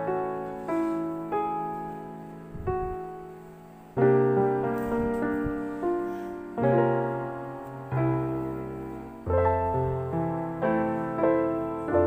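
Background music: a gentle piano tune, notes and chords struck about every half second and each fading away, easing off to a lull about three seconds in before a new phrase starts at about four seconds.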